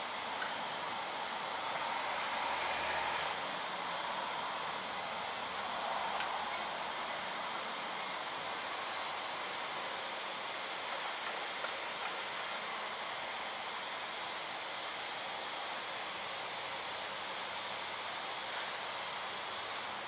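Steady, even hiss of outdoor background noise with no distinct events.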